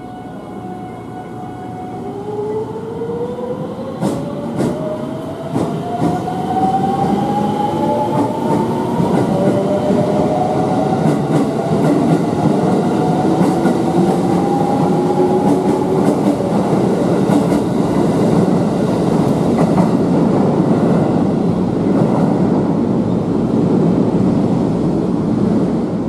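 JR West 281 series limited express train pulling away from a station platform: its motors whine in several rising tones as it accelerates from about two seconds in. Wheel clicks over the rail joints follow, then the steady rumble of the cars rolling close past.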